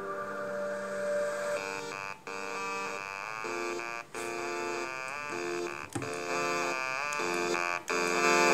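Music played through Redgear Mini 2.0 USB speakers as a sound test: a melody of held notes with short pitch slides, broken by brief gaps about every two seconds.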